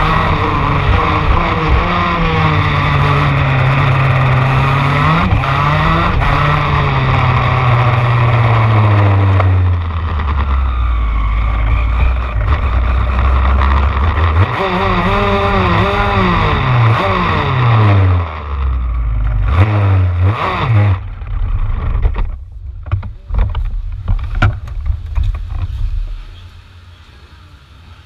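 A shifter kart's 125cc two-stroke engine heard from onboard: its pitch falls steadily as the kart slows, runs low for a few seconds, then revs up and down in short swoops. It then splutters and pops irregularly and cuts out near the end.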